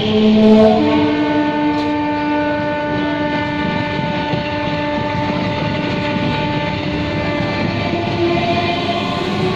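Electric multiple-unit (EMU) local train pulling away, its traction drive whining in several stacked steady tones over the rumble of its wheels on the rails. The tones shift up in pitch within the first second, then hold level.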